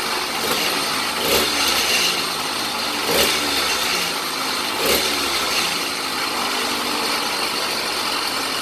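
Small two-stroke motorized-bicycle kit engine (66cc/80cc class) idling, blipped three times with short rises in revs about two seconds apart.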